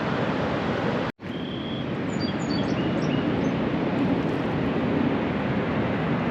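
Steady rushing outdoor noise, with a brief dropout about a second in and a few short high chirps soon after.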